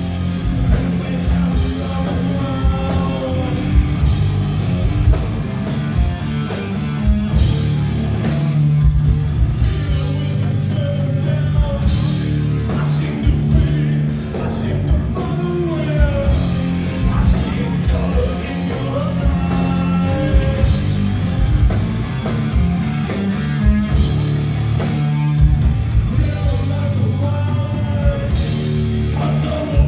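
A heavy rock band playing live and loud, with electric guitars, drums and singing.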